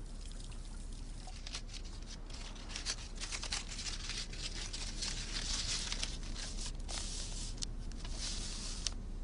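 Writing on paper: a pen scratching in quick short strokes, sparse at first, then denser and louder from about three seconds in until near the end.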